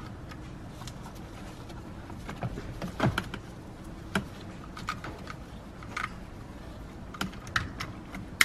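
Scattered light plastic clicks and rattles of wiring connectors and their locking tabs being handled and pressed into a steering-column clock spring, with the sharpest clicks about three seconds in and near the end.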